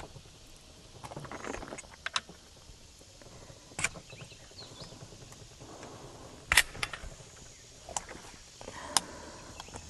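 Seneca Dragon Claw .50 caliber PCP air rifle being cocked and reloaded between shots: a string of separate sharp clicks and clacks, the loudest about six and a half seconds in.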